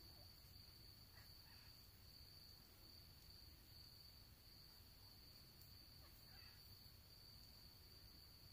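Near silence: faint room tone with a steady, thin high-pitched whine.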